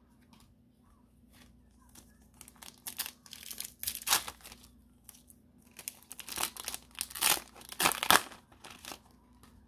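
Foil wrapper of a Pokémon 151 booster pack crinkling and tearing as it is ripped open by hand, in two rustling bouts, the sharpest crackles about four and eight seconds in.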